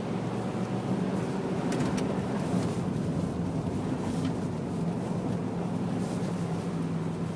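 Vehicle engine running steadily while driving, a constant hum over road noise, with brief sharp knocks about two and four seconds in.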